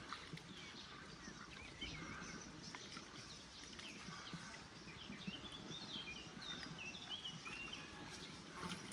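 Faint twittering of small birds, many short quick chirps, over steady outdoor background noise.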